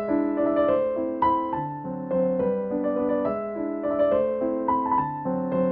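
Background piano music: a steady run of notes over held lower tones.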